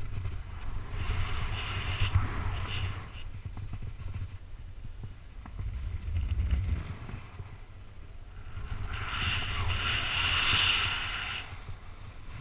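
Wind buffeting a body-mounted action-camera microphone during a bungee jump, a constant low rumble, with two louder rushes of air as the jumper falls and swings on the cord, a couple of seconds in and again near the end.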